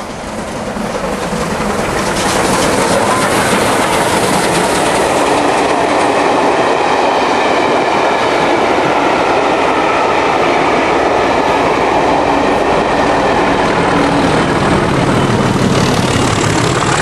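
Steam-hauled passenger train behind BR Light Pacific locomotive 34046 Braunton passing close by. The sound grows louder over the first two seconds as the train draws near, then holds as a steady, loud rumble of the coaches' wheels on the track.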